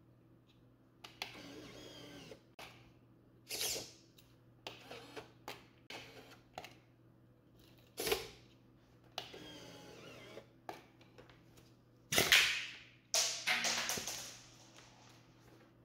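Scale-model tank's autoloader mechanism cycling: short runs of a small electric motor whirring between sharp mechanical clicks and clacks, the loudest two clacks coming near the end.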